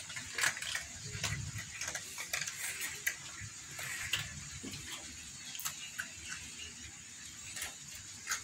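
Several cats eating dry kibble off a tiled floor: irregular small crunches and clicks.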